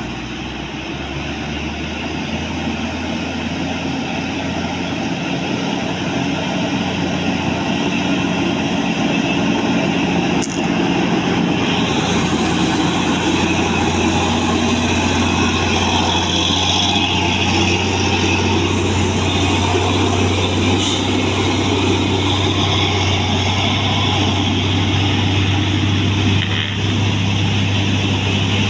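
A large bus's engine running with road noise, a steady low hum that grows louder over the first ten seconds or so and then holds steady.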